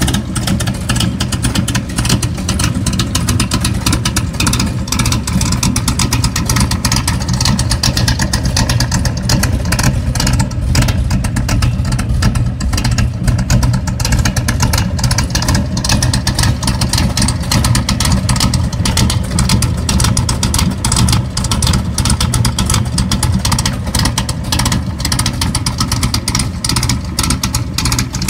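1973 Corvette's 454 big-block V8 idling through chrome side pipes, a loud, steady exhaust rumble.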